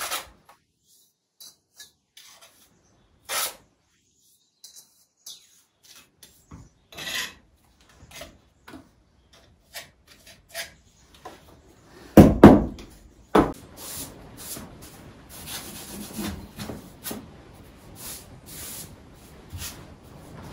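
Steel mason's trowel scraping and working mortar against brick in short separate strokes while soldier bricks are laid. There are a few loud knocks about twelve seconds in, then steadier scraping.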